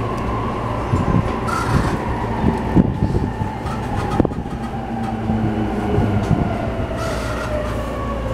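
E231 series electric train heard from inside the car as it slows on the approach to a station: the traction motor whine falls steadily in pitch under braking, over a steady rumble, with irregular knocks from the wheels over rail joints and points in the first few seconds.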